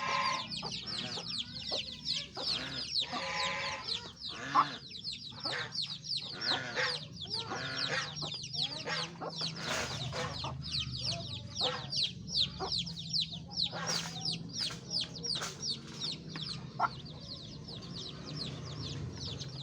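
Chicks peeping in a near-continuous chorus of rapid, high, falling cheeps, calling for the hen. Lower clucking calls come in among them now and then.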